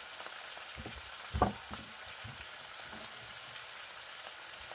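Chopped cabbage frying in melted butter and olive oil in a pan, a steady sizzle. A single thump about a second and a half in, then a few light clicks.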